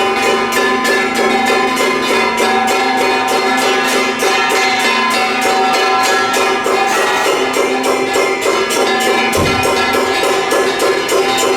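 Festival percussion music: drums and metal percussion beating a fast, steady rhythm of about five strokes a second, with steady held pitched tones over it and a deep drum thump near the end.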